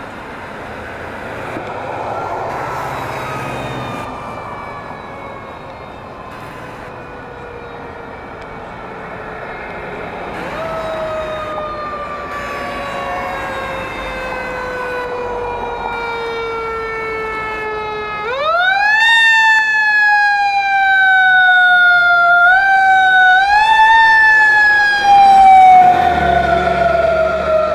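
Fire engine siren wailing: each cycle rises quickly in pitch and then slowly winds down. It sounds faint at first and grows much louder about two-thirds in as the engine approaches. The truck's engine rumbles low as it passes near the end.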